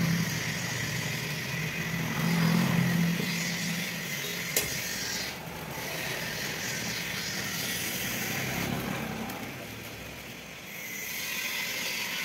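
A steady mechanical rumble with a low hum, engine-like, swelling in the first few seconds and fading for a while near the end. A single sharp click about four and a half seconds in.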